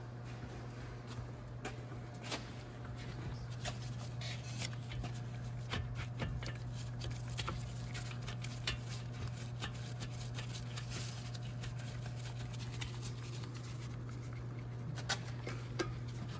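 Scattered light clicks and taps of gloved hands fitting and threading the front brake caliper bolts, over a steady low hum.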